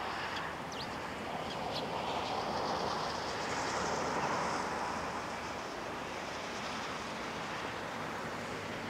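Steady rushing outdoor background noise that swells a few seconds in and eases again, with a few faint, short, high bird calls about a second in.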